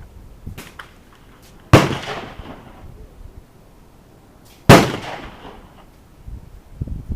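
Two handgun shots about three seconds apart, each sharp and loud with a short echoing tail, with a few fainter distant shots from the firing line just before the first.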